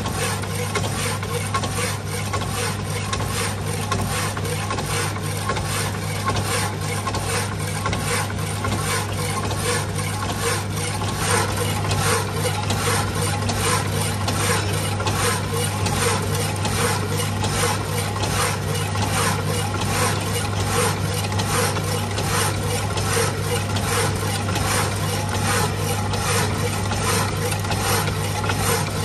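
Power hacksaw machine sawing through an iron bar under a water-coolant drip. The blade rasps back and forth in a steady rhythm of about two strokes a second, over the constant hum of the electric motor.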